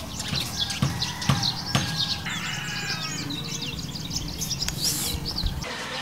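Small birds chirping repeatedly, many short calls one after another, over a low steady background that drops away near the end.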